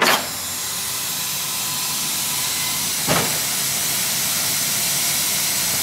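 Compressed air hissing steadily from a bottle through the hose and lance into a car's race-style air jacks as they extend and lift the car; the hiss starts abruptly. A short thump about three seconds in.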